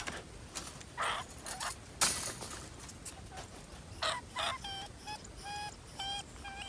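Wire-mesh rat traps and cages clattering and rattling as they are handled, with the sharpest rattle about two seconds in. In the second half, a trapped field rat squeaks over and over in short, even-pitched squeaks.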